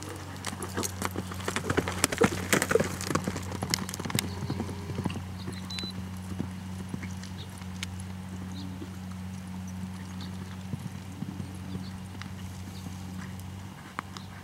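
Horse's hoofbeats galloping and turning on loose arena dirt in a barrel-racing run. The hoofbeats are loudest and densest in the first few seconds, then grow fainter and sparser.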